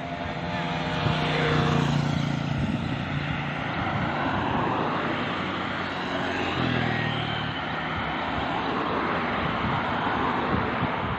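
Motorcycles and cars passing close by on the road, engine hum over tyre noise; one vehicle goes by about a second in and another around six to seven seconds in.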